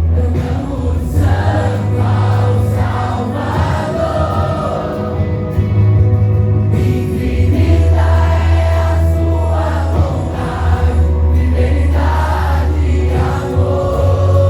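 Christian worship music with a choir of voices singing over a band with strong bass.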